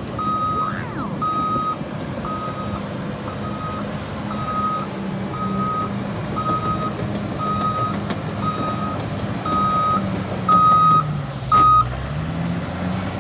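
Bulldozer's reversing alarm beeping steadily, about three beeps every two seconds, over the steady running of its diesel engine. Near the end the beeping stops, the engine pitch dips and comes back up, and there is a brief louder noise.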